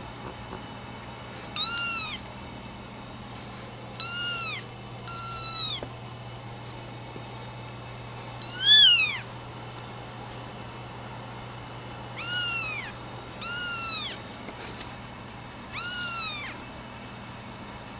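Bengal kittens meowing: seven short, high-pitched meows spaced a second or more apart, each rising then falling in pitch, the loudest about halfway through.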